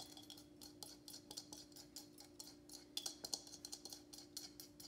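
Faint, scattered light clicks and taps as chopped cilantro is tipped and scraped out of one bowl into another, over a steady low hum.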